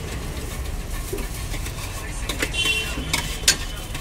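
Steel utensils clinking against pots at a street dosa stall over a steady low rumble, with a few sharp clinks in the second half and a short high tone about two and a half seconds in.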